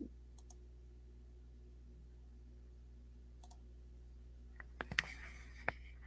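Faint low hum, then a few sharp clicks from someone working a computer, starting about four and a half seconds in.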